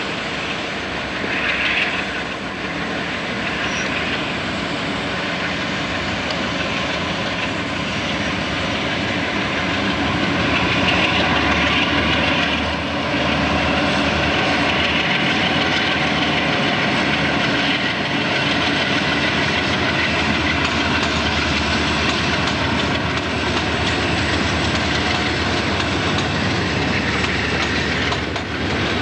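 Conrail diesel freight train passing close by: the lead EMD locomotives' engines run, then a long string of hopper cars rolls past, a steady, continuous rail noise.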